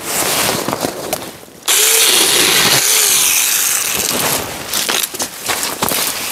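TEENTOK 4-inch battery-powered mini chainsaw starting up suddenly about two seconds in and cutting through a branch for about two seconds. Before and after, scattered clicks and rustles.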